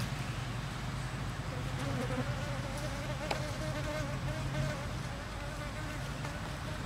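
Bees buzzing close by, a wavering drone that comes in about a second and a half in and carries on through the rest, over a steady low hum, with one short click midway.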